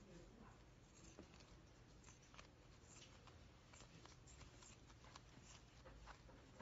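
Faint, irregular snips of scissors cutting through an adult diaper pant's soft nonwoven fabric, with light crinkling and rustling of the diaper.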